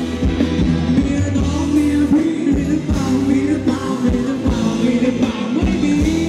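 Live band playing Thai ramwong dance music, with a singer's voice over a steady drum and bass beat.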